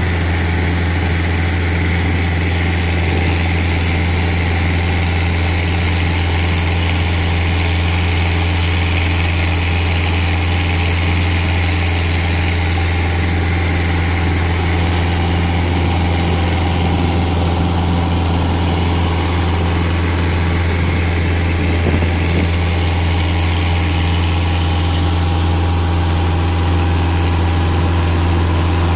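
Longtail boat's engine running steadily underway, a deep even drone that does not change in pitch or level.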